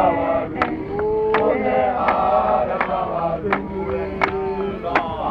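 A group of ZCC men singing a chant-like hymn together in harmony, with sharp hand claps keeping time about once every three-quarters of a second.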